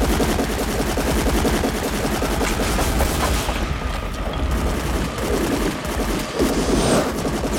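Film fight sound effects: a dense, unbroken run of rapid cracks and crashes, like breaking stone and debris clattering, with a few gliding tones in the second half.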